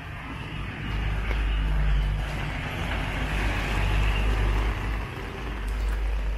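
A motor vehicle's engine rumbling close by with tyre hiss on the rain-wet street. It swells to a loud rumble about a second in, dips briefly near the end and comes back.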